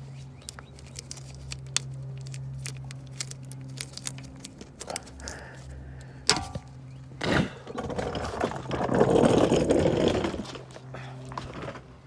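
Gloved hands working the plastic ride-height sensor link off its ball-socket mount, giving small plastic clicks and scrapes over a steady low hum. About seven seconds in, a louder stretch of rustling handling noise lasts a few seconds.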